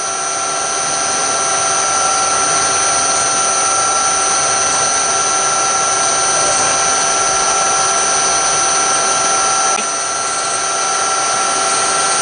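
Mill-drill spindle running with a 5 mm twist drill cutting straight through an aluminium bracket with no pilot hole: a steady motor and drive whine with several fixed high tones, easing briefly about ten seconds in.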